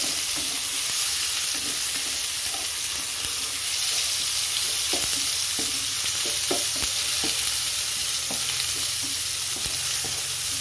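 Chopped tomatoes and whole spices sizzling steadily in hot oil in a kadai, while a utensil stirs them, with scattered scrapes and taps against the pan.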